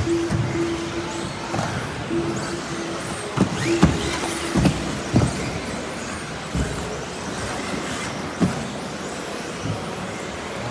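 1/10-scale two-wheel-drive off-road RC buggies racing: motor whine and tyre noise, with several sharp knocks and a brief rising whine about three and a half seconds in. A steady low tone comes and goes during the first half.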